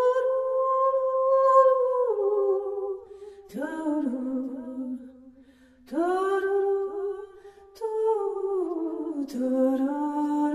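Wordless hummed vocal melody as music: one voice holding long notes that slide from pitch to pitch, in phrases of two to three seconds with brief pauses between them.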